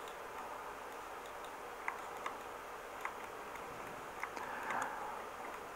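A few faint, separate clicks of a computer mouse over quiet room hiss, with a brief soft rustle near the end.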